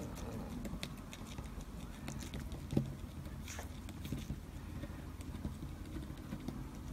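Faint scattered taps and ticks of a brush dabbing alcohol ink onto the painting surface, with one sharper knock about three seconds in, over a low steady hum.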